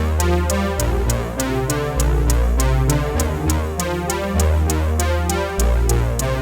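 Electronic background music: a synthesizer track with a steady drum-machine beat and sustained bass notes.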